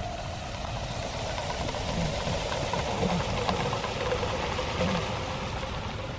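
Liquid nitrogen boiling off around a steel chain dipped into it: a steady hiss with bubbling and small crackles.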